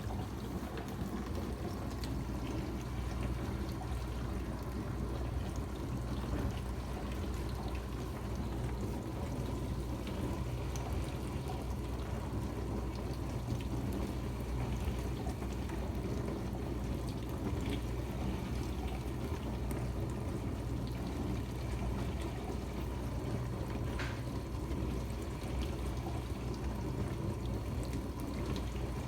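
Dishwasher running: water spraying and sloshing inside the tub over a steady low hum, with a few faint ticks.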